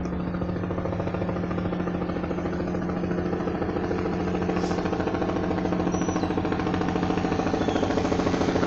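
Military helicopter flying toward the listener, its rotor beating in a rapid, even pulse over a steady engine tone, growing gradually louder as it comes closer.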